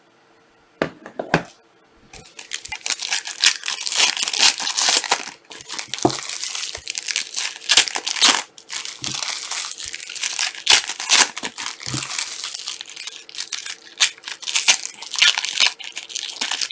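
Plastic wrapping of trading card boxes and packs crinkling and tearing as they are opened by hand. A couple of sharp clicks come about a second in, then a busy, unbroken run of crackling rustles from about two seconds in.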